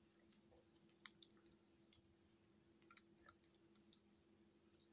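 Faint, irregular clicks of the plastic parts of a Transformers Depth Charge action figure being folded and shifted in the hands during transformation.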